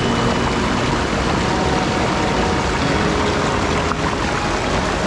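Mountain stream water rushing steadily and loudly.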